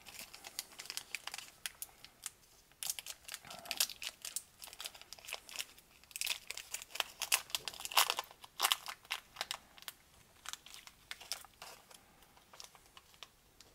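Chocolate bar wrapper and its gold foil crinkling and tearing as they are peeled open by hand, in a run of short crackles with brief pauses between.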